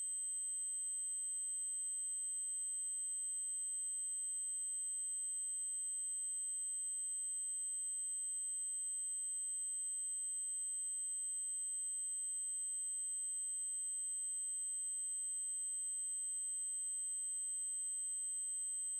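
Steady, unbroken high-pitched 8192 Hz triangle-wave test tone, electronically generated, with a faint tick about every five seconds.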